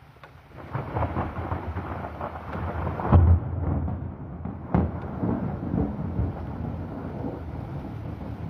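Thunder breaking out about half a second in over steady rain: a long crackling rumble with sharp cracks, the loudest clap about three seconds in and another sharp crack near five seconds, then rolling on.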